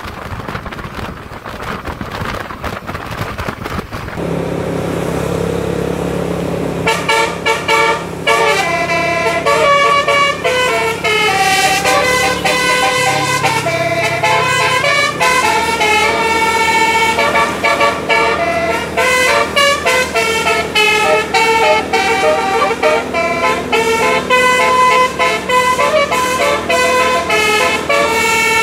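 A bus's musical air horn ('telolet') playing a tune of quickly changing notes. A steady tone sets in about four seconds in, and the melody starts about three seconds later and runs until just before the end.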